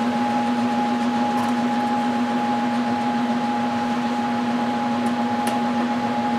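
Electric furnace running with its heating elements energised: a steady electrical hum at two pitches over an even rushing noise, with two faint ticks about five seconds in.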